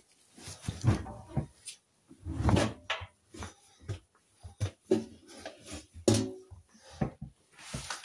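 Clothes in a mesh laundry bag being stuffed by hand into a front-loading washing machine drum: an uneven run of knocks, bumps and rustles, with a few louder thumps.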